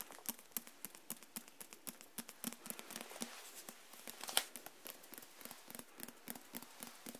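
Fingertips and nails tapping on the cover of a book held right up to the microphones: quick, irregular taps, several a second, with one louder tap about four seconds in.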